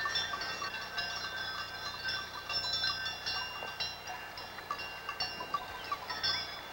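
Many metal bells on a herd of cattle clinking and ringing irregularly at several pitches, overlapping one another.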